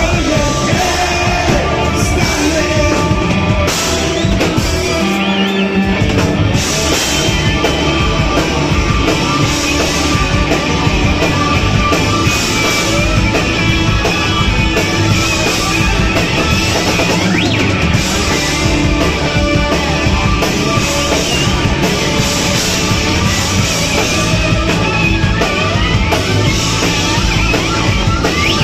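A live rock band playing, with drum kit and guitar, steady and loud throughout.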